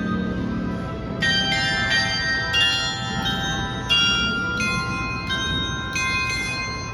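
Dutch-made chime bells of a karakuri clock playing a slow melody, one struck note after another, each note ringing on under the next.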